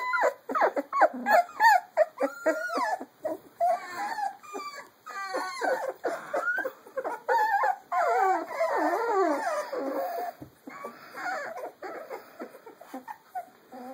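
A litter of puppies about three weeks old whining and squealing, many short rising-and-falling calls that often overlap, thinning out toward the end.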